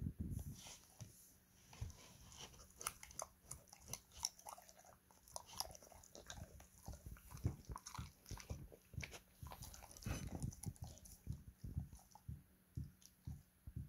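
Border collie chewing and licking up bits of fried liver: an irregular run of short smacks and crunchy clicks.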